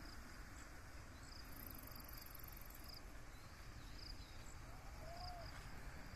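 Quiet rural ambience: faint, scattered insect and bird chirps over a low steady rumble, with a brief high insect buzz about a second and a half in and one short, lower call about five seconds in.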